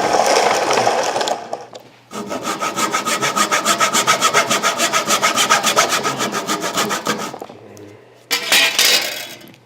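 Small rusty hand saw cutting through the leather cover of a cricket ball, in quick, regular back-and-forth strokes. It cuts easily through the leather. The strokes break off for a moment about a second and a half in, run steadily until about seven seconds in, and then come back as a short scrape near the end.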